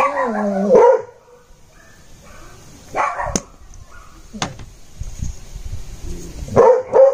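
A dog whining and barking: a drawn-out, wavering whine that stops about a second in, then short barks about three seconds in and again near the end.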